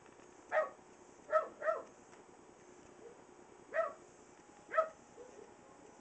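Puppy giving five short, high woofs: one, then a quick pair, then two more spaced about a second apart. These are a young puppy's first attempts at barking.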